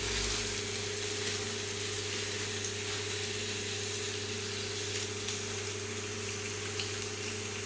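Hamburger patty sizzling on a hot ridged grill pan over a gas burner: a steady hiss over a low steady hum, with a couple of faint clicks in the second half.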